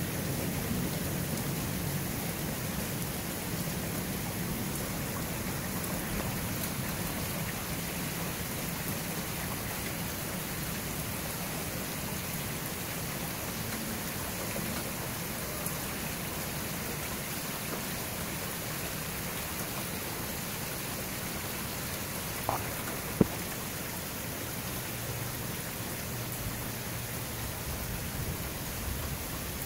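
Steady rain falling through a night thunderstorm, with the low rumble of thunder fading away over the first several seconds. A single sharp click about 23 seconds in.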